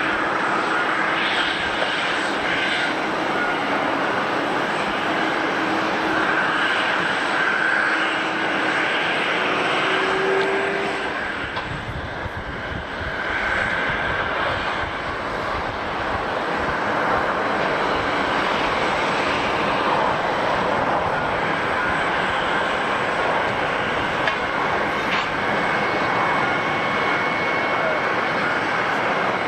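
Jet airliner engines running, a steady noise with a few faint steady tones, dipping briefly about twelve seconds in.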